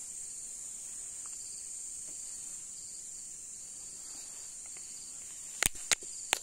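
Steady high-pitched chorus of crickets at night, with a fainter, lower trill coming and going. A few sharp knocks near the end.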